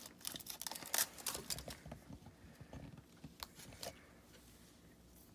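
Foil wrapper crinkling as it is peeled off a chocolate surprise egg. It dies down after about two seconds to a few faint clicks.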